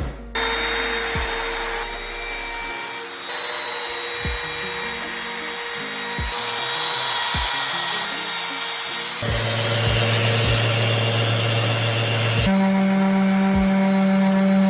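Power tools working wood, heard in a quick run of short clips that switch abruptly every second or three, each with its own steady hum or whine over a hissy grinding noise. Background music plays underneath.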